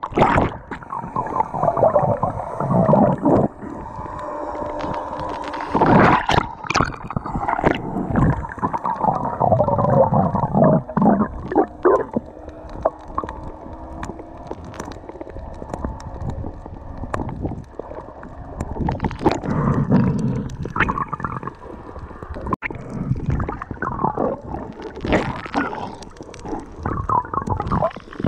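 Muffled rushing and gurgling of water around a camera held underwater, swelling and fading unevenly, with a few sharp knocks.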